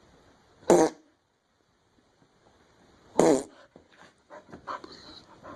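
A dog gives two short, loud calls about two and a half seconds apart, followed by quieter scattered small sounds.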